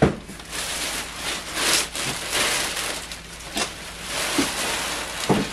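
Clear plastic packaging bag rustling and crinkling in irregular surges as it is pulled off a heat press, with a sharp knock at the very start.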